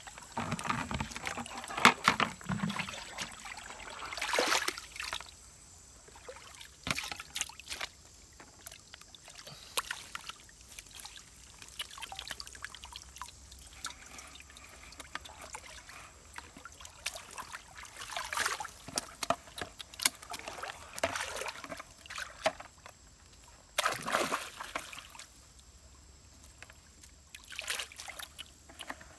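Water splashing and trickling as a wet umbrella fish trap net is handled and lifted in shallow river water, coming in irregular bursts with quieter stretches between.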